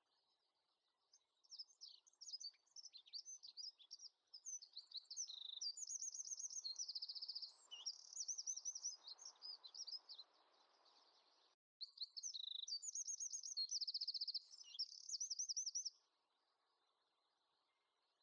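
A songbird singing rapid, high chirps and trills in two long phrases, with a short break near the middle, over a faint soft hiss.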